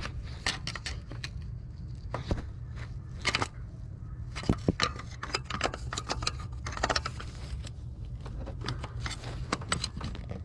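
Irregular metal clicks and short scrapes of a pry tool levering a 2004 Chevy Impala 3.4L's fuel pressure regulator out of its seat on the fuel rail, over a steady low hum.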